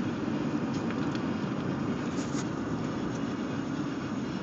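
Work truck driving along, a steady engine and road rumble heard from inside the cab, with a few faint clicks.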